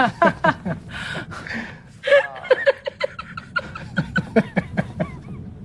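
A man and a woman laughing, in quick runs of short breathy laughs with gasps in between.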